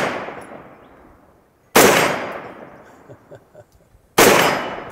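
Faxon Bantam 9mm pistol-caliber carbine firing 50-grain ultralight rounds: two shots about two and a half seconds apart, each report echoing away over a second or so. The echo of a shot fired just before trails off at the start.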